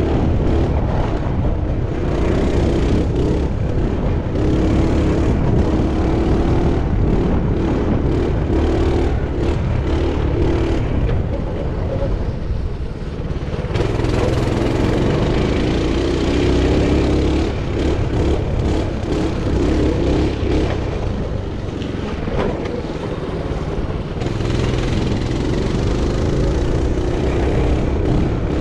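Pit bike engine running under throttle on a dirt track, with wind rushing over the microphone. About twelve seconds in the engine backs off as the bike slows for a turn, then rises in pitch as it accelerates away.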